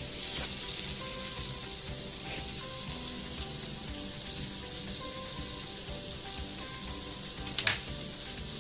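Vegetables stir-frying in hot oil in a pan, a steady sizzle, with a brief knock near the end.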